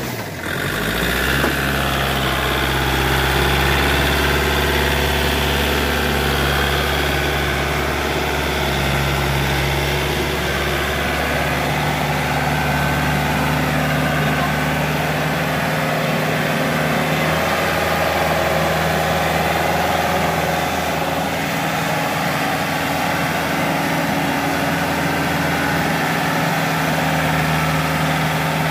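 Kubota L1-285 tractor's diesel engine running steadily, its note shifting slightly a couple of times.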